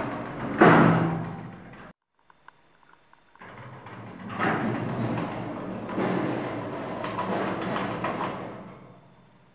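Automatic sliding lift doors slam shut with one loud knock about half a second in. After a short pause with a few faint clicks, the doors rumble and rattle open again, the noise fading out near the end.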